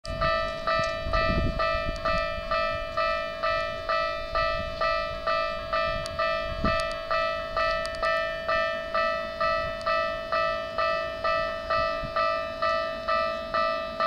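Japanese railway level-crossing warning bell ringing, one ding struck again and again at a steady rate of a little under two a second, each fading before the next.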